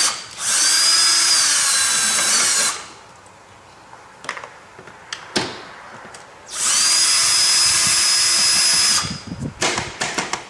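Cordless drill-driver running twice, for about two and a half seconds each time, with a high motor whine, backing out two 8mm screws. A short knock falls between the two runs.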